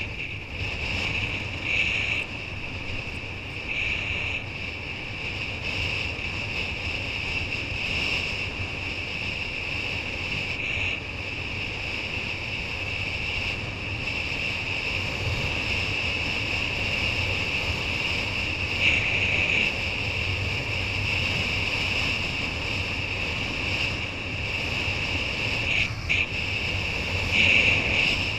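Wind rushing over the microphone and water hissing past a racing kiteboard at speed, with a steady high-pitched whine that swells briefly a few times.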